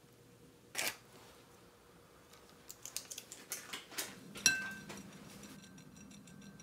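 Packet of dried maesaengi seaweed torn open with a short rip, then small crinkling and clicking as the dried seaweed is shaken out of the packet into a metal mesh strainer. About four and a half seconds in comes a sharp clink with a brief ringing, as the strainer knocks against the glass bowl.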